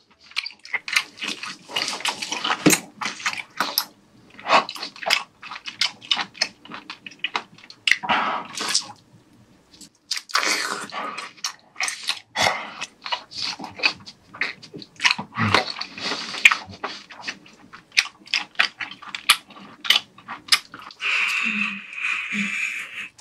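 Wet chewing, smacking and sticky clicks of a person biting into and chewing a boiled giant octopus tentacle, close to the mouth. A steadier sound of about two seconds comes near the end, as he bites hard into the tough tentacle.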